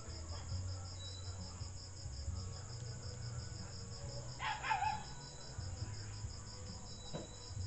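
A cricket chirping steadily, a high-pitched pulse of about four chirps a second, over a low steady hum. A short louder sound with a bending pitch cuts in briefly about four and a half seconds in.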